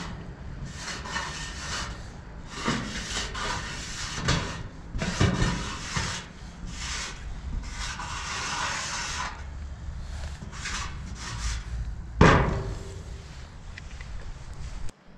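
Wide-tip paint marker scraping over a rough ledge in a string of short and long strokes as a graffiti tag is written. One sharp knock late on.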